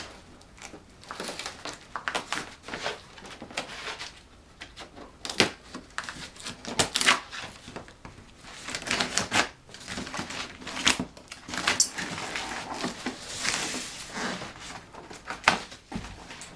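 Cardboard box and its packing being opened and handled: irregular taps, knocks and short rustles and scrapes.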